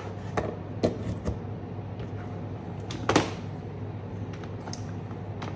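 A few short knocks and clicks from objects being handled, the loudest about three seconds in, over a steady low hum.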